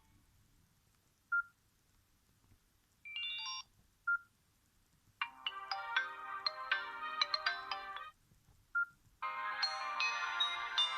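Sony Ericsson S312 polyphonic ringtones playing through a Samsung GT-B3210 phone's speaker, several short tunes in turn. Each tune comes after a brief single beep, and the longest runs about three seconds.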